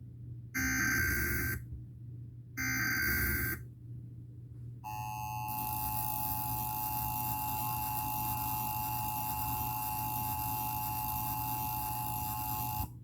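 Emergency Alert System test tones: two one-second bursts of the SAME digital header data, then about five seconds in the two-tone EAS attention signal (853 and 960 Hz) starts and holds steady for about eight seconds before cutting off.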